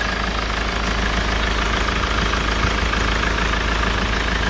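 Diesel engine of a 2008 Mk7 Ford Transit idling steadily with the bonnet open, a faint steady high whine running over it. The owner calls the engine "sweet as".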